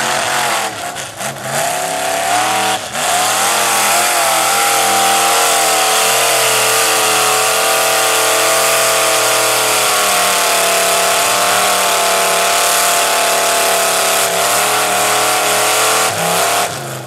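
Chevrolet mud-bog pickup's engine revving hard at full throttle, its tires spinning through deep mud. The revs rise and fall for the first few seconds, hold high and steady, and drop off sharply near the end as the truck bogs down.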